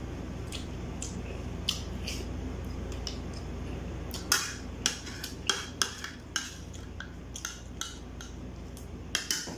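Metal spoon and fork clinking and scraping against a ceramic plate while eating: a string of short, sharp clicks, few at first and many from about halfway, with a quick cluster near the end.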